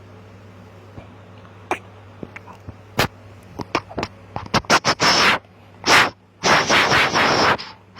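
A run of sharp clicks and taps, quickening after about three seconds, then several short scraping bursts, over a steady low hum.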